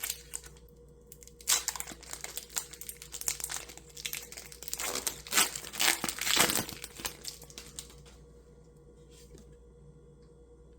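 Pokémon booster pack's foil wrapper being crinkled and torn open, a run of crackles and sharp rips that dies away about three-quarters of the way through.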